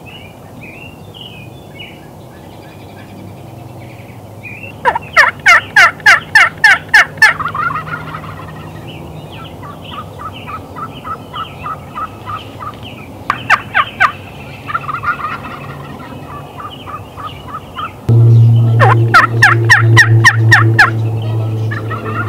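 A flock of wild turkeys calling: loud bursts of rapid rattling gobbles about five seconds in, briefly again near fourteen seconds and again near the end, with softer runs of evenly spaced calls in between. A steady low hum comes in suddenly about eighteen seconds in.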